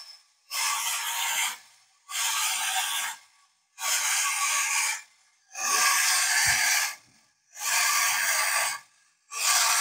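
Clockwork tin toy dog running, its wind-up mechanism giving a rasping, growl-like noise in bursts about a second long, one every second and a half or so.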